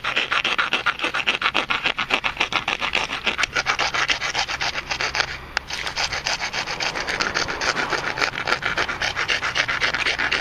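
A hand file rasping rapidly back and forth across the edge of a PVC pipe bow tip, rounding off the sharp edges.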